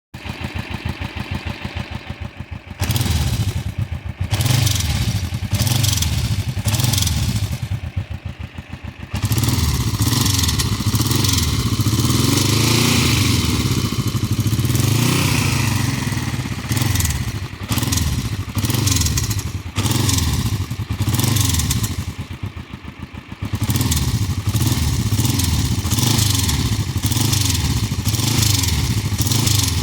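2008 Kawasaki Vulcan 500 LTD's parallel-twin engine running hot with a fast, steady clicking over the engine note, growing louder and quieter in stretches. The clicking turns up only once the engine is hot and is gone when it is cold; its cause is not known.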